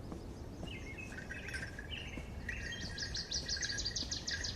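Birds chirping, with a fast run of high repeated notes about three seconds in, over a low steady background noise.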